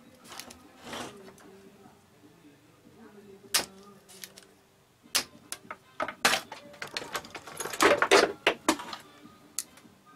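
Spring-loaded desoldering pump (solder sucker) being cocked and fired on a transistor's pins, giving sharp single clicks a second or two apart. A louder, denser run of clicks and rattles comes about eight seconds in.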